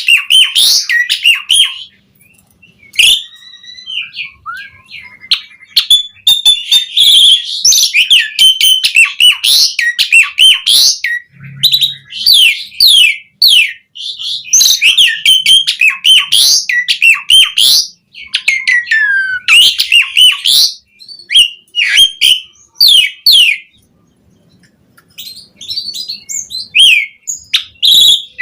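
Asian pied starling (jalak suren) singing loudly in full voice, a long run of quick, varied chattering and sliding whistled phrases that the keeper calls full of imitated song material. The singing breaks off a few times with short pauses.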